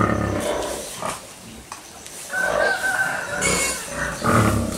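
Farmyard animals at a pig pen: pigs grunting, and a rooster crowing once around the middle.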